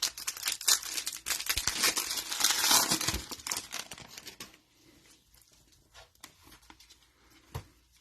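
A trading-card pack's foil wrapper torn open and crinkled, a dense crackling that fades out after about four and a half seconds, followed by a few faint ticks of cards being handled.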